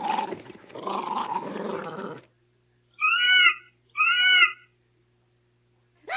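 Star Wars creature sound effects: a rough growling snarl for about two seconds, then two short high yelps about a second apart, each rising and falling in pitch.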